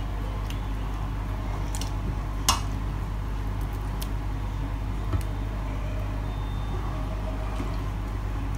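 Kitchen tongs tapping and scraping against a stainless steel pot and a cast-iron sizzler plate as cooked chicken pieces are lifted and set down: a few scattered sharp clicks, the loudest about two and a half seconds in, over a steady low hum.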